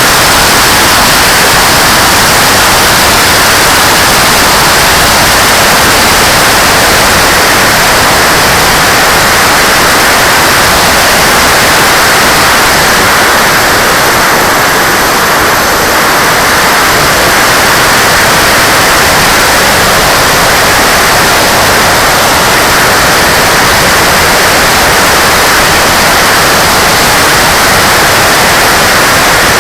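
Loud, steady rushing hiss from an RC jet's 90 mm electric ducted fan and the airflow over the on-board camera in flight.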